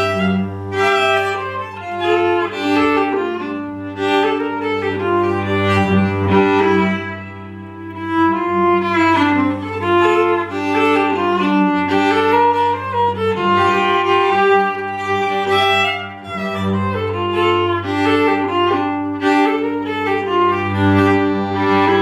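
Fiddle playing an old-time fiddle tune, a quick-moving melody over a steady low line from an upright bass, played live.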